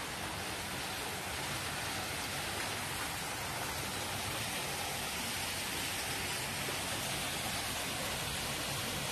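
Steady, even hiss of water, with no breaks or distinct events.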